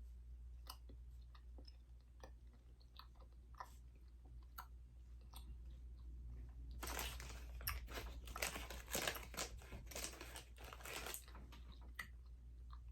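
A person chewing a chewy strawberry candy, described as a bit hard to chew: faint, scattered mouth clicks and smacks, growing denser from about seven to eleven seconds in.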